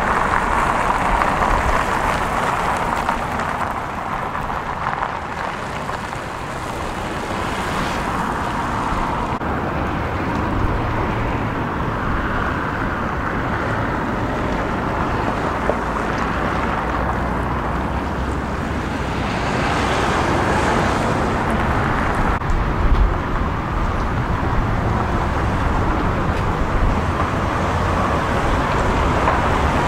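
Car driving, a steady rush of road and wind noise.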